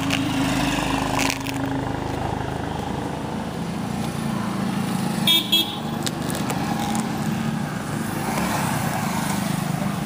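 Road traffic with a motor vehicle engine running steadily, and a vehicle horn tooting twice in quick succession about five seconds in.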